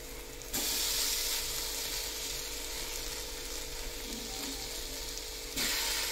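Pieces of rupchandi (pomfret) fish sizzling as they shallow-fry in mustard oil on a flat tawa, with a metal spatula scraping and turning them. The steady sizzle grows suddenly louder about half a second in.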